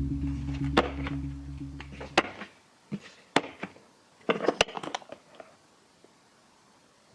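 Background music ending about two seconds in, with a series of sharp clicks and knocks: a few spread out, then a quick cluster of them a little past the middle.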